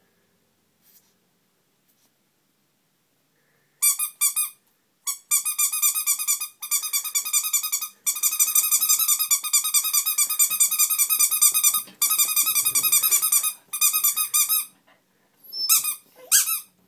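Tiny rubber duck squeaking as it is squeezed by hand, starting about four seconds in: rapid runs of high, even-pitched squeaks with brief pauses, then a few single squeaks near the end.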